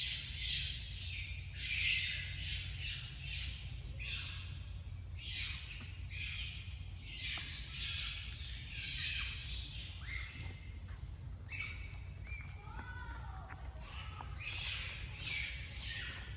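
Repeated short, high-pitched animal calls and squeaks, with a steady low rumble underneath.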